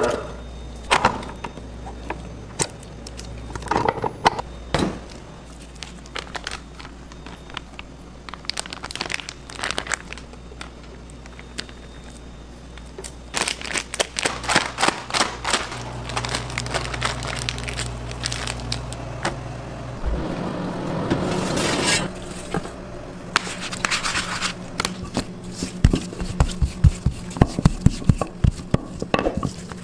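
Kitchen food-prep handling: a spatula scraping thick filling in a steel mixing bowl and a plastic piping bag crinkling as it is filled, with scattered clicks and crackles. Near the end a wooden rolling pin rolls dough on a steel counter in a quick, even run of knocks.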